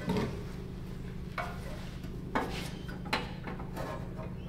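A handful of brief metal clinks and knocks as a steel shift-lever rod is handled and fitted through a slot cut in a riding mower's sheet-metal fender, over a steady low hum.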